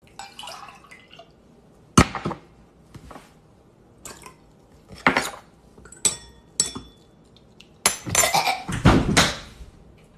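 Spoon and glass handling: a metal spoon knocks and clinks against a stemmed glass of orange juice as something is stirred in. There is a sharp knock about two seconds in, short ringing glass clinks in the middle, and a longer run of stirring and clinking near the end.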